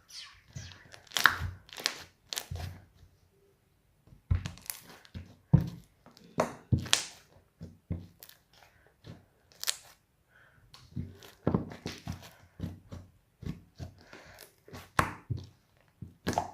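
A large slime being kneaded and stretched by hand, giving irregular sticky clicks and pops.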